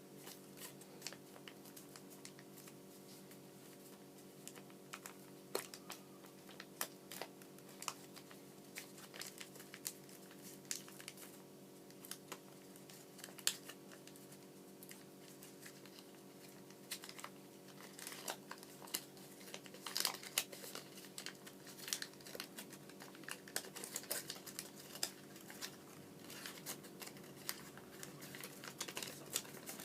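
Origami paper being folded and creased by hand: irregular short rustles and crinkles, busier in the second half, over a steady low hum.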